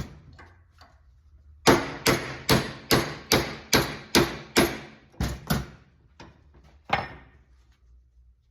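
Hammer blows on a punch, driving the worn, knurled original hinge pin out of a 1966 Chevrolet C10 door hinge held in a vise. One strike comes at the start. A steady run of about eight sharp metal-on-metal blows, about two and a half a second, starts nearly two seconds in. A few lighter hits follow, with one more firm blow near the end.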